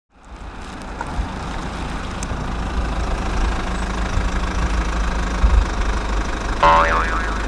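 Truck engine idling with a steady low rumble that cuts in abruptly at the start. Near the end a short warbling horn blast sounds, its pitch stepping up and down like a telolet horn.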